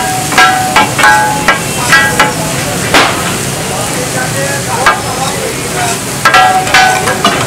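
Metal spatula clanging and scraping on a large tawa griddle in quick ringing strikes, with a lull in the middle, over the steady sizzle of chicken frying in oil.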